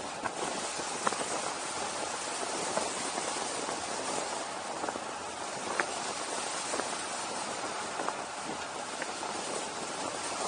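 Steady rushing hiss of wind on the camera's microphone during a fast road descent, with a few faint ticks.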